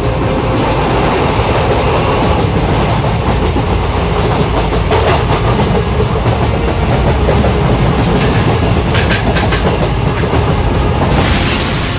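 Passenger train running along the track, heard from the carriage window: a steady rumble with the clickety-clack of wheels over the rails, and a few sharper clicks near the end.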